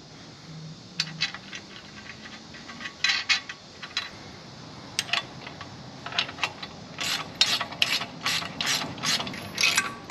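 Ratchet wrench clicking as it runs down 9/16-inch nuts on the step bolts. A few short runs of clicks come first, then a quick, even run of about three clicks a second in the last few seconds.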